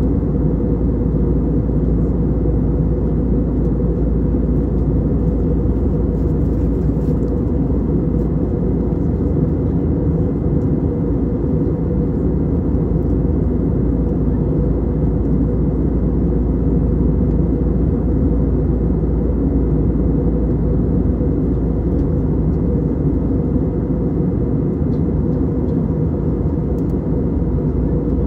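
Steady low rumble of engine and airflow noise inside the cabin of an Airbus A320neo with CFM LEAP-1A engines, holding even throughout.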